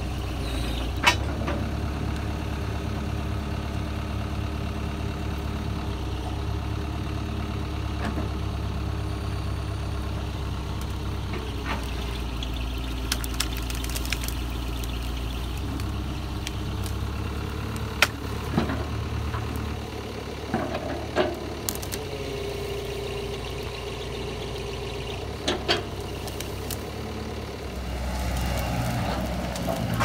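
John Deere 135C excavator's diesel engine running steadily, with a tone above it that shifts now and then as the machine works. Several short sharp cracks stand out, and it gets louder near the end.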